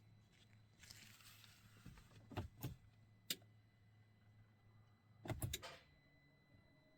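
Quiet car cabin with a faint low hum and a few sharp clicks and knocks, then a quick run of several clicks about five seconds in, as the hum stops.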